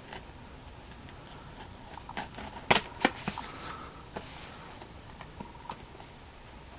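Small cutter slitting and prying at the seals of a cardboard card box, with the box handled and shifted: scattered light clicks and scrapes, the sharpest a click a little under three seconds in.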